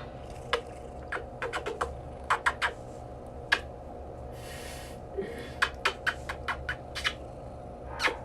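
A series of irregular sharp clicks, some in quick runs, over a steady low hum.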